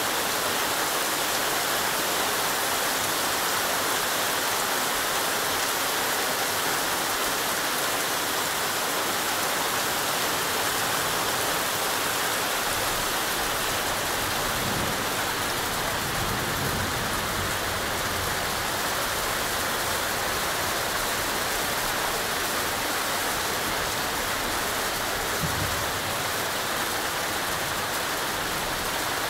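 Heavy thunderstorm rain pouring steadily in a dense, even downpour, with a faint low rumble around the middle.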